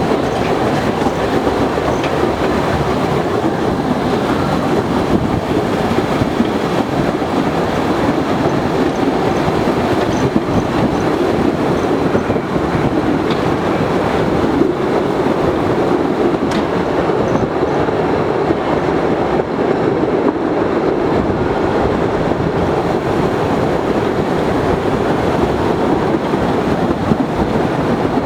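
Postojna Cave tourist train running along its track, a steady, loud rolling noise of wheels on rails with a few faint clicks.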